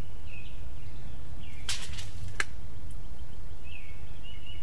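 A steel tape measure's blade retracting into its case: a short rattle about one and a half seconds in, ending in a sharp click. Birds chirp now and then over a steady low rumble.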